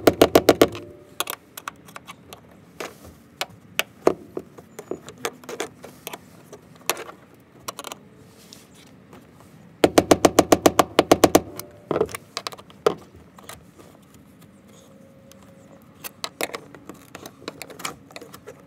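Flathead screwdriver prying at the edge of a sheet-metal fuel pump access cover: quick runs of sharp metal clicks at the start and again about ten seconds in, with scattered single ticks and knocks between.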